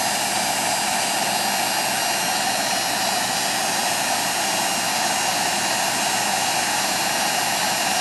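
Eddy Mark IV industrial heat gun running steadily, its fan blowing an even rush of hot air onto heat-shrink tubing.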